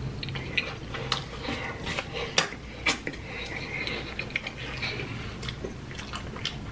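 Close-up chewing of a mouthful of cheese-stuffed Chicago deep-dish pizza: wet mouth sounds with many short smacks and clicks at irregular intervals.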